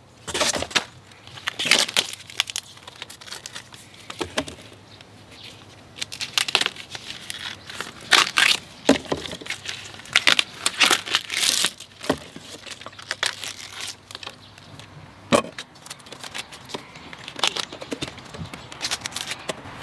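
Fresh bamboo shoot being peeled by hand: its tough outer sheaths tearing and crackling as they are pulled off, in irregular strokes with short pauses between.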